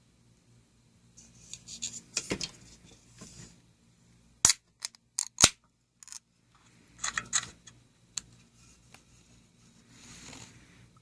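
Rustling handling noises broken by a few sharp clicks, the two loudest about four and a half and five and a half seconds in.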